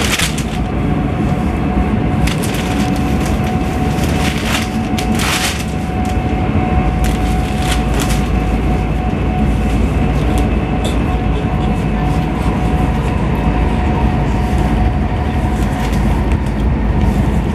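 Running noise inside a moving passenger train carriage: a steady low rumble with a faint steady whine. Newspaper pages rustle now and then in the first several seconds.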